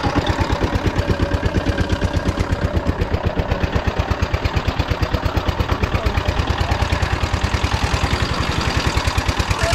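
Vehicle engine running with an even, rapid pulsing beat, about ten pulses a second.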